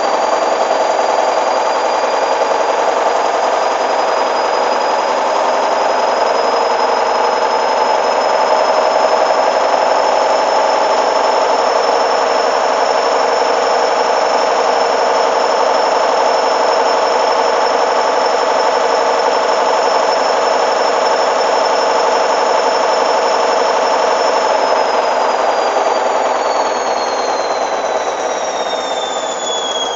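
Hoover Dynamic washing machine spinning at high speed: a steady rushing drum noise with a high motor whine that holds, then from about three-quarters of the way through falls in pitch as the drum starts to slow down.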